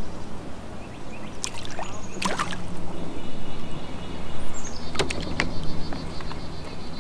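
A hooked bream splashing at the surface as it is reeled alongside a kayak and lifted out, with several short sharp splashes and water lapping against the hull.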